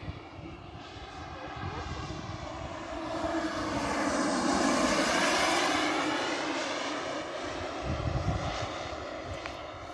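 Radio-controlled model BD-5 aircraft making a pass. Its engine noise swells to a peak about halfway through, then fades away.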